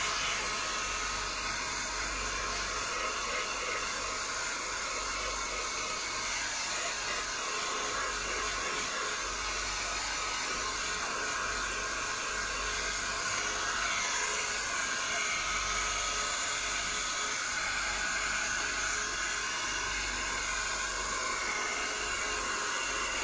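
Handheld hair dryer running steadily, blowing on a bathed kitten's fur to dry it: an even rush of air with a faint steady whine in it.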